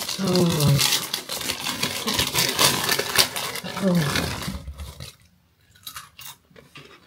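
Plastic snack packet crinkling and being torn open, with a couple of short vocal grunts mixed in. About five seconds in it goes almost silent, then the snack is bitten with faint crunches.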